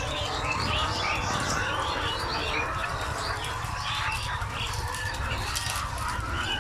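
A large flock of chickens calling over one another, many short overlapping calls with no let-up, over a steady low rumble.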